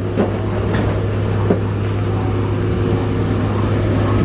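A large box delivery truck's engine running close by, a steady low hum.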